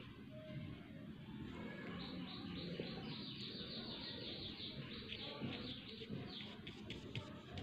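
A bird chirping in a fast run of short repeated notes, starting about two seconds in and thinning out near the end, over a low steady background hum.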